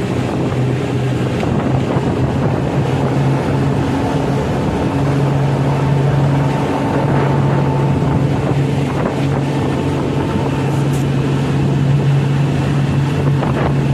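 Small fishing boat's engine running steadily with a low, even hum, and wind buffeting the microphone.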